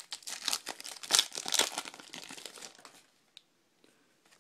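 Baseball card pack wrapper crinkling as it is torn open, a busy crackle for about three seconds, then a few faint ticks near the end.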